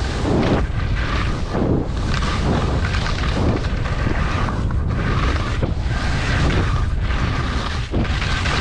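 Wind rushing over the microphone of a skier's body-mounted camera during a fast downhill run, with the skis scraping and hissing on the snow at each turn, about once or twice a second.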